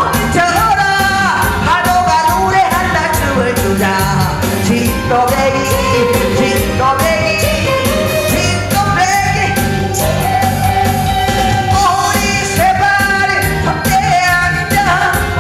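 A woman singing a Korean song into a microphone over amplified backing music with a steady beat.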